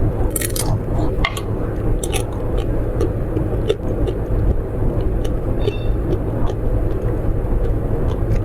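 A steady low rumble, with scattered short clicks and taps over it.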